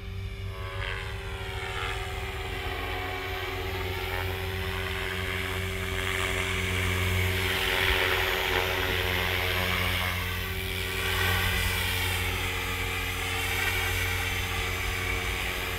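Beam E5 Archon radio-controlled helicopter flying close overhead: the steady whine and buzz of its rotors and drivetrain, its pitch rising and falling as it moves. It is loudest about eight seconds in as it passes low near the microphone.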